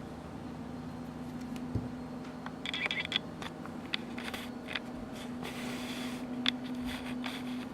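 Hands handling an unboxed vape box mod and its packaging: light clicks, brief rustles and scrapes, over a steady low hum.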